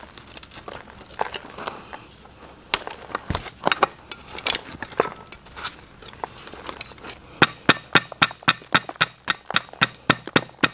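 A metal scraper chipping and scraping hard dried mud, an insect nest, out of an old carburetor: scattered scrapes and sharp clicks, then, about two-thirds of the way in, a quick run of sharp taps at about four or five a second.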